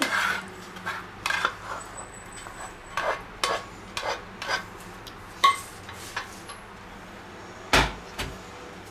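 A plastic spatula scraping and tapping the last of a mince, bean and corn filling out of a frying pan: a string of separate light clicks and scrapes, then a heavier knock about eight seconds in as the pan is put down.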